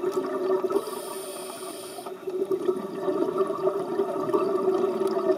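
Underwater sound of a scuba diver's breathing through the regulator: a steady gurgle of exhaled bubbles, a quieter hissing inhale about a second in, then bubbling again from about two seconds in.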